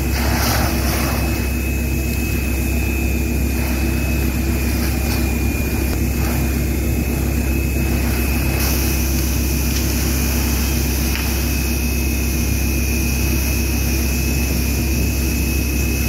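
Fire engine pump running steadily to supply the hose lines: a loud, even roar with a constant high whine. About nine seconds in, a hiss of water spray grows louder.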